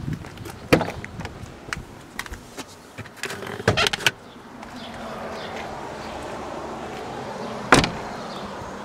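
BMW M6 driver's door being opened and handled: a latch click, a quick cluster of clicks and knocks, then a steady hum and one sharp thunk near the end.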